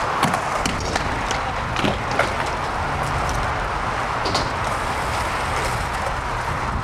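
Skateboard wheels rolling on smooth concrete: a steady low rumble with scattered light clicks.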